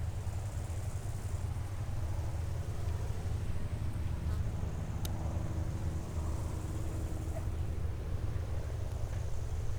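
Light aircraft's piston engine running steadily at low power, heard as a low rumble with a faint hum above it, as when taxiing on the airfield. A single sharp click sounds about halfway through.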